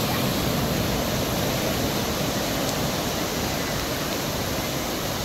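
Sea surf breaking and washing up a sandy beach, a steady rushing noise.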